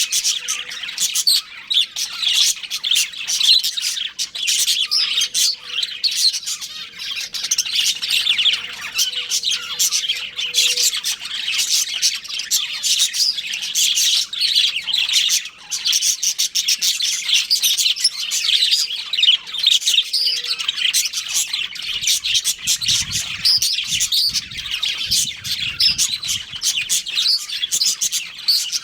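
Budgerigars chirping and chattering without pause, many quick high chirps overlapping one another.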